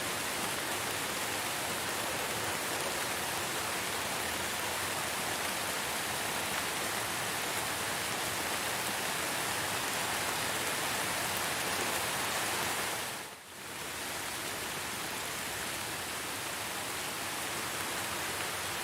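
Steady heavy rain, a dense even hiss, which briefly dips and fades back in about thirteen seconds in.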